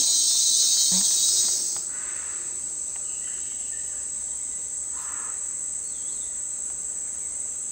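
Steady high-pitched chorus of insects buzzing. It drops in level a little under two seconds in.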